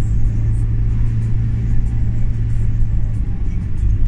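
Steady low rumble of engine and tyre noise inside a moving car's cabin on a winding road, with music playing along with it.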